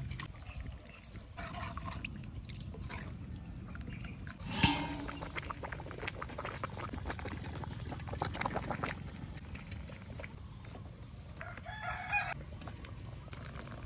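Chickens clucking and a rooster crowing in short calls, the sharpest and loudest about four and a half seconds in and another near the end, over steady low background noise.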